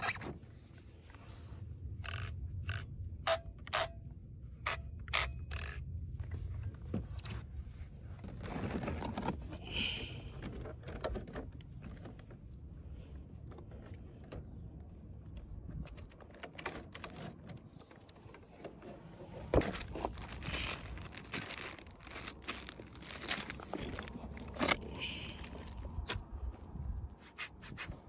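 Handling of an RC car, its transmitter and a spare tyre in a foam packing case: hard plastic clicking and knocking, with scraping against the foam and a quick run of sharp clicks a few seconds in. A steady low rumble of wind on the microphone runs underneath.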